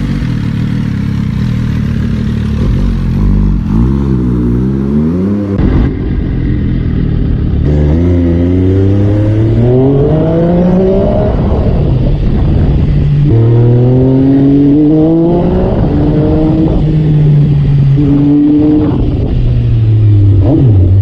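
Engine exhaust running loud, first with a low rumble and a short rev. It then climbs in pitch several times, holds, and falls away near the end.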